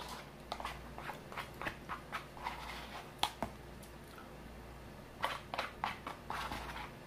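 Close mouth sounds of someone eating a bowl of mashed potatoes, gravy, corn and fried chicken: wet chewing and lip-smacking in irregular clicks, with one sharper click about three seconds in and a quicker run of smacks near the end.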